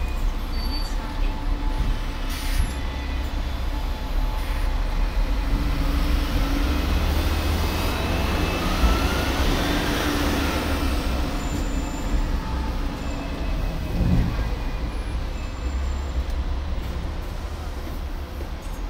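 Hong Kong double-decker tram running along its street track, heard from on board: a steady low rumble with city traffic around it and a single thud partway through.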